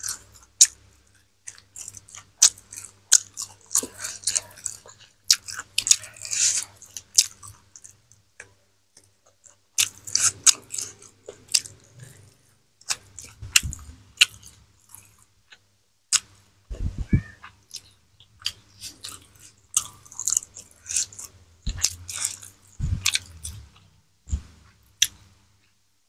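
Close-up chewing and biting of fried chicken, with crunches and wet mouth clicks in irregular bursts and short pauses. A few dull low thumps about two-thirds of the way through and near the end.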